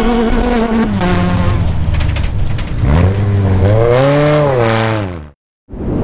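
Class 10 desert race buggy's engine running hard and revving, its pitch climbing and dropping, with a pronounced rise and fall about three to five seconds in. It cuts off abruptly near the end, and a whoosh begins just after.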